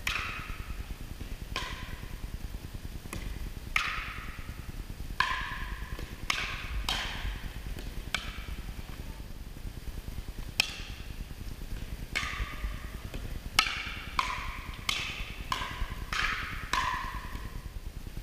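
A pickleball rally: paddles striking a hollow plastic pickleball, giving sharp pocks with a short echo. The hits come at uneven intervals, quicker and closer together in the second half, as in a fast exchange.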